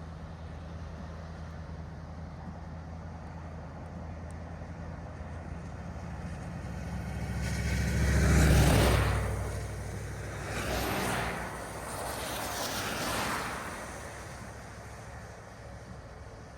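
Steady engine and road hum of a car being driven, with a vehicle passing loudly about halfway through and two quieter passes right after it.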